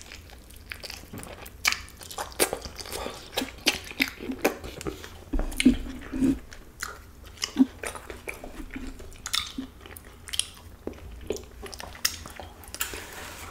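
Close-miked chewing of a bite of carnitas burrito, with irregular wet mouth clicks and smacks.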